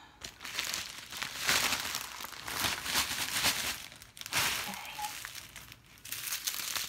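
Crinkling of clear plastic bags: a large bag full of small plastic packets of diamond painting drills being handled and moved. It comes in three stretches, with short lulls about four and six seconds in.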